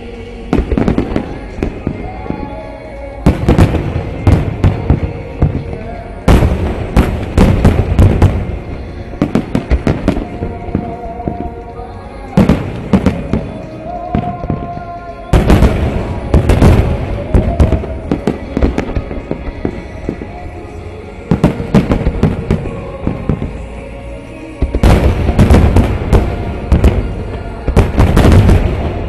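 Aerial firework shells bursting in rapid clusters of booms and crackles every few seconds, with quieter gaps between salvos. Music plays underneath.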